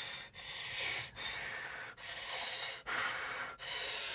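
A person breathing hard in and out through an open mouth: a run of five hissing breaths, each under a second long with short gaps between. It is the panting of someone trying to cool a mouth burning from a hot pepper.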